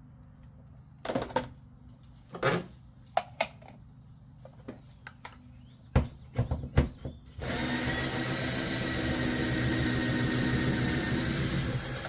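A few knocks and clicks of tools being handled, then about seven seconds in a power drill starts and runs steadily for over four seconds, backing out one of the long screws that hold a car's hood scoop.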